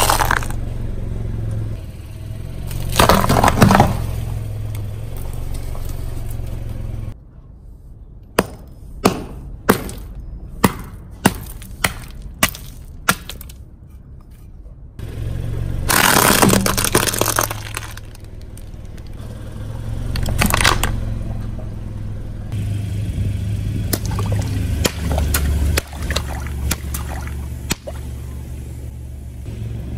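Car tyre rolling over and crushing bell peppers and other food, with crunching and cracking over the low running of the car's engine. A run of about eight sharp cracks, a little over half a second apart, comes in the middle.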